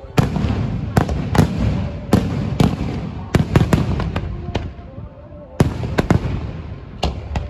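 Fireworks going off: a rapid series of about a dozen sharp bangs, with rumbling and crackling between them and a short lull about five seconds in.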